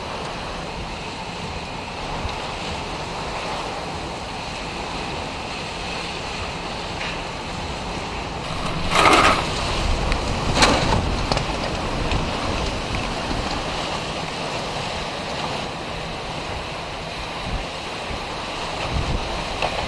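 Hurricane-force wind and rain making a steady rushing noise with wind buffeting the microphone. About halfway through come two short, louder bursts of noise, a second and a half apart.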